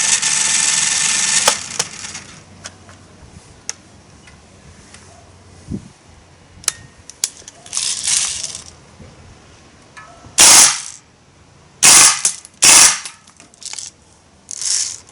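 A loud steady noise that cuts off about a second and a half in, then a few clicks. Later come short bursts of full-auto fire from an Umarex air rifle: one about ten seconds in, two quick ones around twelve seconds, and a fainter one near the end.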